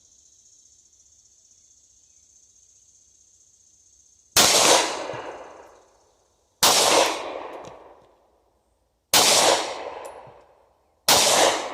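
Four 9mm pistol shots about two seconds apart, each with a short ring-out, fired at bowling pins and all four hitting.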